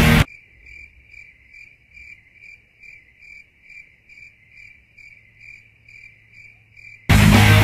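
A cricket chirping sound effect: a steady chirp repeating a little over twice a second, over a faint low hum. Rock music cuts off abruptly just after the start and comes back near the end.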